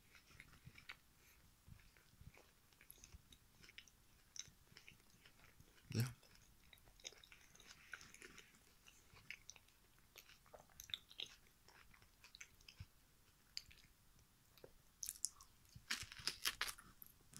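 Close-up chewing of a banana eaten with its peel on: faint, scattered wet mouth clicks and smacks. There is one louder thump about six seconds in, and the chewing noises grow louder and denser near the end.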